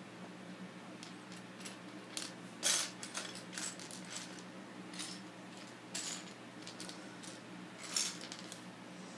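Loose Lego bricks clicking and clattering as a hand rummages through a pile of pieces: a scatter of small hard plastic clicks, the loudest about two and a half seconds in and again near the end.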